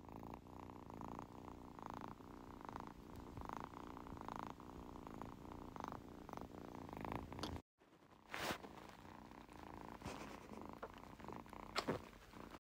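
Tabby kitten purring, faint and rhythmic, swelling and fading with each breath. It breaks off briefly about two-thirds of the way through, then goes on more faintly with a few soft clicks.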